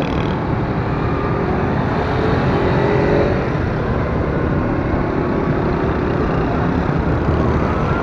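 Steady street-traffic noise heard while riding a motorcycle through traffic: the running of small motorcycle and auto-rickshaw engines blended with road noise, with no single event standing out.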